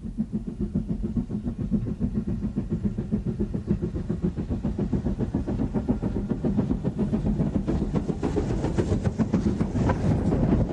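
BR Standard Class 4 2-6-4 tank steam locomotive running, a quick steady rhythm of chuffing and rail noise that grows louder near the end.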